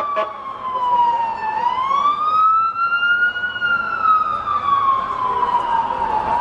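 Emergency vehicle siren on a slow wail, its pitch falling, then rising for about two seconds, then falling again.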